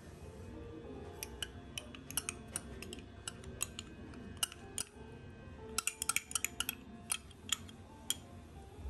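Metal spoon clinking and scraping against a small cup and a bowl as red bean paste is scooped onto shaved ice: many short, sharp clinks in irregular clusters, thickest a little past the middle.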